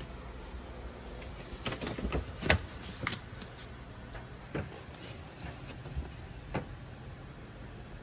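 A quick run of light knocks and clicks about two seconds in, the loudest a sharp knock, then three single taps spaced a second or so apart, over a low steady hum.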